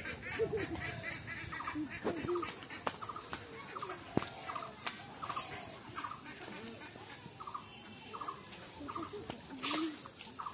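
A flock of domestic ducks quacking and chattering on the water, with a short higher call repeating about every second. About four seconds in there is a sharp click, and near the end a brief rush of noise is the loudest sound.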